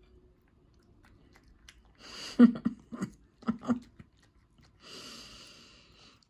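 Cat chewing food noisily, with a cluster of loud smacking bites about two seconds in and a short breathy noise near the end.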